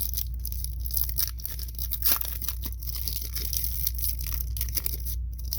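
A foil Pokémon card booster pack being torn open and its wrapper crinkled, with irregular crackling and tearing throughout.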